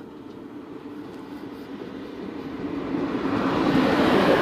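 SNCF BB 27000 electric freight locomotive approaching along the track and passing close by. Its sound swells steadily and is loudest near the end as the locomotive draws level.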